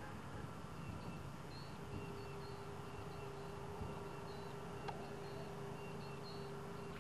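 Steady outdoor background hum and hiss, joined about two seconds in by a faint steady tone, with small high chirps scattered through.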